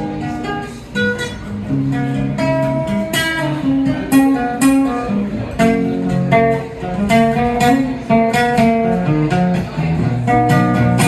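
Acoustic guitar playing an instrumental passage of a song, a quick run of picked and strummed notes.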